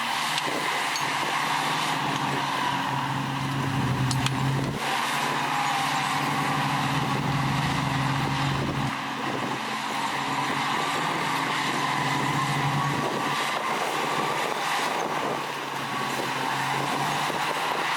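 Heavy diesel earthmoving machinery running steadily under work, a low engine drone with a wavering high whine above it. The engine note shifts about five seconds in and again around nine seconds.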